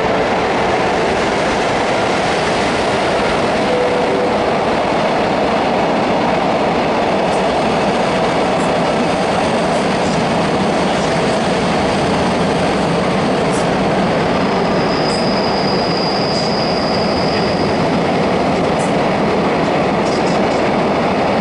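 Freight train of container wagons rolling steadily past, a continuous rumble of wheels on rail, with a brief high wheel squeal about fifteen seconds in.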